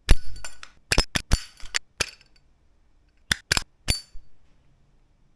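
Zippo lighter's hinged metal lid clinking open and snapping shut, about a dozen sharp metallic clicks in quick groups over the first four seconds.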